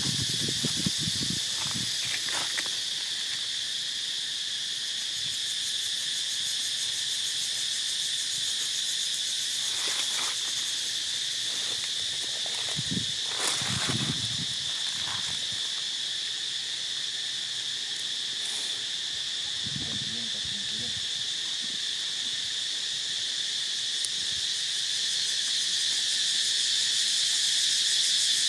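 Steady high-pitched insect chorus, a continuous shrill drone that swells slightly near the end. A few brief low sounds break in about halfway through.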